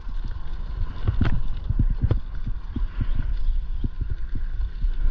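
Irregular knocks and thuds, a few each second, with a sharper one about a second in, over a steady low rumble.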